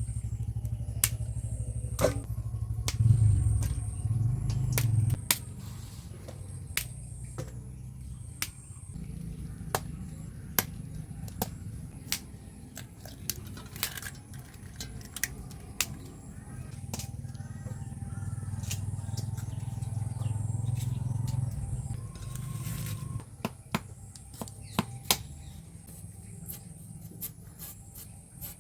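Cauliflower and potatoes being cut by hand: irregular sharp clicks and snaps of the blade going through the vegetables, over a low steady hum.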